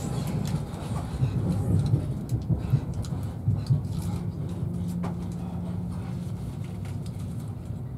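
Ride noise inside a coach of an InterCity 125 (Class 43 HST) pulling away: a steady low rumble of wheels on rail, with sharp knocks as the bogies run over points and rail joints in the middle of the stretch.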